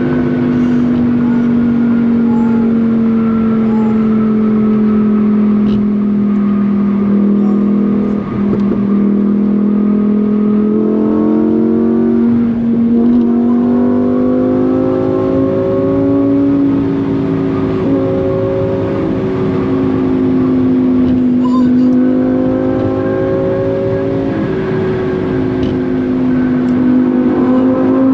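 Lamborghini Huracán Performante's V10 engine and exhaust running while driving in Corsa mode; its pitch sinks slowly at first, then climbs and dips several times.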